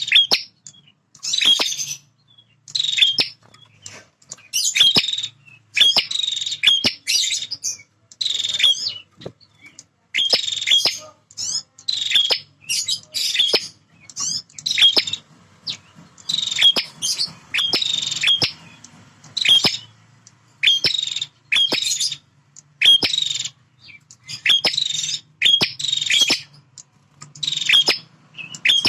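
Male prinia (prenjak) calling: loud, short bursts of sharp, rapid chirps repeated about once a second with brief pauses between.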